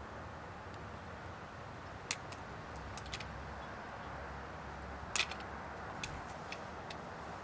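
A few sharp snips and clicks over steady background noise: scissors cutting away the plastic coating of a U-lock. The loudest snips come about two, three and five seconds in.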